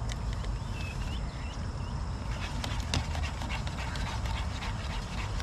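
A dog whimpering in several short high whines over the first second and a half, while a metal fork scrapes and clicks against a camping pan of béchamel sauce, most around the middle.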